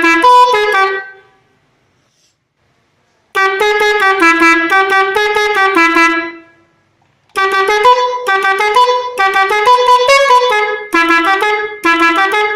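Six-trumpet telolet bus air horn, fed by an air compressor, playing quick multi-note tunes with the pitch stepping from note to note. It sounds in three bursts: the first fades out about a second in, the second starts after a two-second pause and fades, and the third starts after a short break and carries on with brief gaps.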